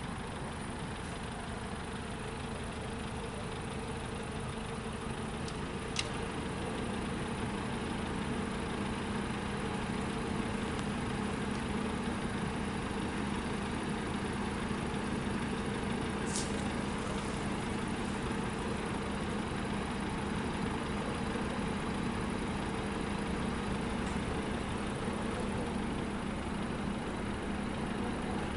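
Steady hum of vehicle engines idling, with a low held tone. Two brief sharp clicks, about 6 seconds in and about 16 seconds in.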